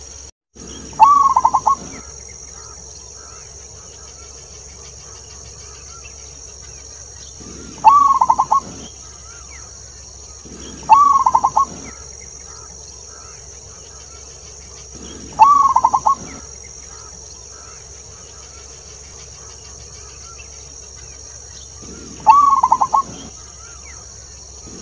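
Zebra dove (perkutut) singing: five bouts, each opening on the long 'klauww' note and running into a quick string of soft cooing notes lasting about a second, repeated every few seconds. A steady high-pitched hiss runs behind.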